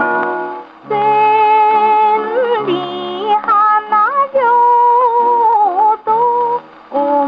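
Acoustic Victrola gramophone playing a 78 rpm Columbia shellac record of a 1930s Japanese popular song. A melody line of held notes, sliding between pitches, runs over a small orchestra accompaniment, with no high treble.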